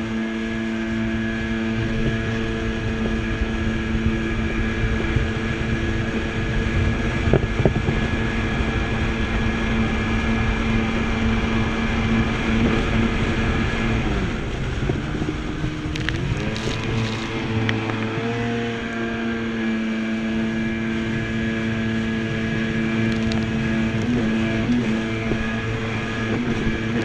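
Jet ski engine running steadily at speed, with wind and water spray rushing past. About halfway through, the engine note drops and then climbs back up over a few seconds before settling steady again.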